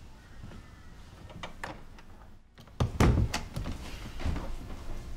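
Front door being opened and shut: a few light clicks, then several heavier thumps about three seconds in.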